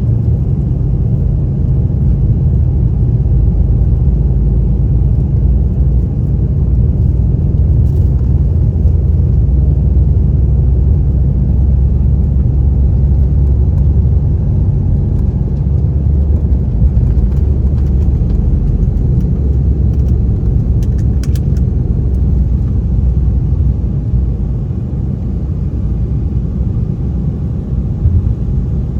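Airbus A320 jet engines at takeoff thrust: a loud, steady low rumble that eases slightly a few seconds before the end.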